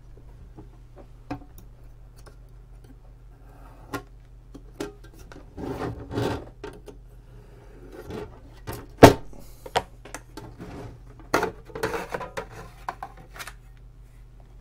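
A blade scraping and cutting tape on a sheet-aluminium instrument case, then the cover being worked loose and lifted off: scattered scrapes, rubs and clicks, with one sharp knock about nine seconds in.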